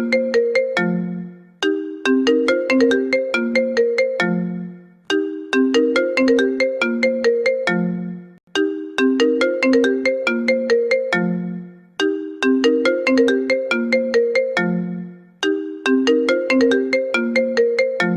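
iPhone incoming-call ringtone: a short melody of quick notes ending on a lower note, repeating about every three and a half seconds.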